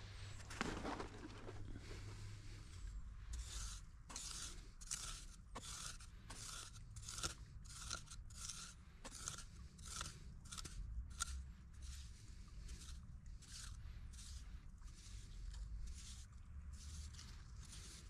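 Repeated short rasping strokes, about two a second, beginning a few seconds in and thinning out after about ten seconds.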